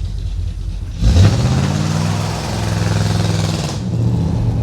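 Pontiac 350 V8 with a four-barrel carburettor idling, then revved hard about a second in and held for roughly three seconds with a broad hiss of the rear tyres spinning, then dropping back to idle near the end. This is a brief burnout on a rear axle still running its stock differential, before the Powertrax locker is fitted.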